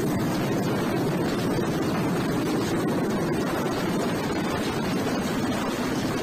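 Mil Mi-8 military transport helicopter running on the ground at close range, its turbines and turning main rotor making a steady, dense rushing noise.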